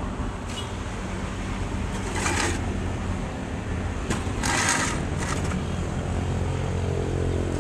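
An engine running steadily with a low hum, growing a little louder toward the end, with two short bursts of rustling about two and four and a half seconds in.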